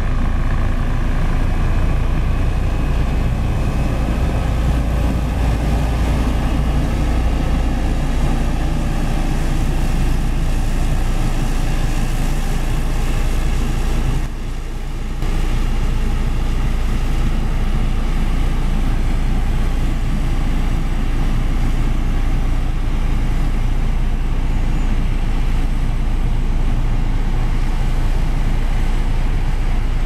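JCB 116D single-drum road roller's diesel engine running steadily with a deep low rumble as the machine drives along. The sound drops briefly about halfway through, then carries on as before.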